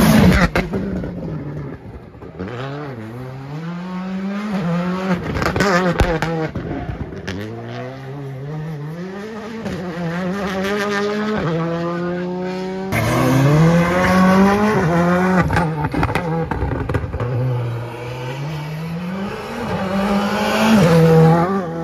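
Rally cars driven flat out on a tarmac stage, each engine note rising through the gears again and again and dropping back at every shift. There is an abrupt switch to another car about 13 seconds in.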